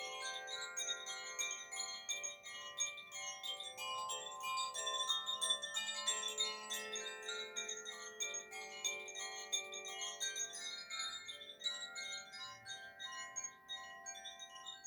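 Koshi chimes rung continuously by hand: many bell-like notes struck in quick succession, overlapping and ringing on into a sustained shimmer.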